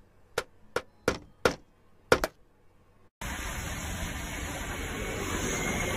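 About six short, sharp plastic clicks and clacks, unevenly spaced over two seconds, from a cartoon robot handling the pieces of a toy shape sorter. About three seconds in, after a brief cut to silence, a steady rush of outdoor street noise starts.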